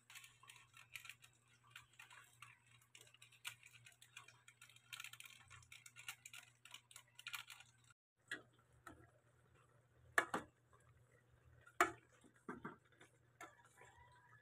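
Faint rapid crackling and ticking for the first half, then a few sharp knocks and scrapes of a metal spoon against an aluminium cooking pot as shrimp, cabbage and sauce are stirred, two knocks standing out.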